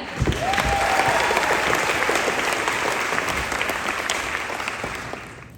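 Audience clapping with a brief cheer near the start; the applause fades toward the end.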